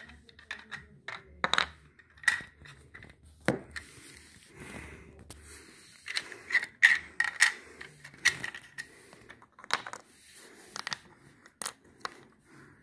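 Toy model pickup truck and small plastic block toys handled on a hardwood floor: a string of sharp clicks and taps with light rolling and scraping in between.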